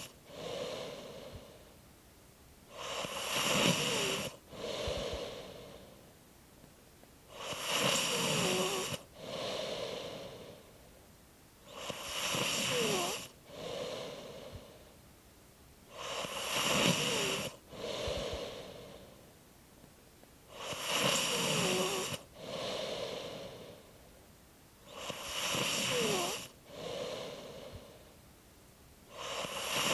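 A person snoring in a slow, even rhythm, about one snore every four and a half seconds. Each is a longer snoring breath with a quiet squeak falling in pitch, followed by a shorter breath.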